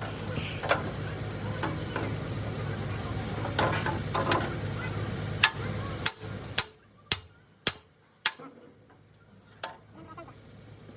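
A steady low hum that stops about six seconds in, followed by a run of sharp knocks about half a second apart and one more a little later.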